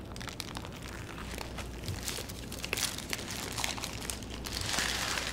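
Close-miked biting and chewing of a crispy fried chicken sandwich, with its paper wrapper crinkling: quiet, scattered crunches and crackles, denser near the end.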